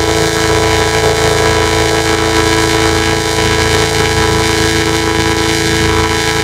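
McDonald's ad outro audio run through a heavy distorting effect, turned into a loud, steady horn-like drone of held tones over a fast buzzing pulse in the bass.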